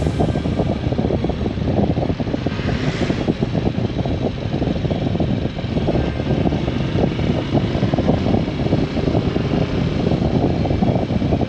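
Wind buffeting the microphone of a moving motorcycle, a loud, steady, flickering rush. A brief higher hiss rises about two and a half seconds in.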